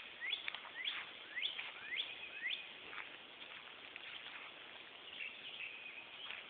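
A quick series of about six short, high rising chirps, roughly two a second, then fainter, scattered chirps.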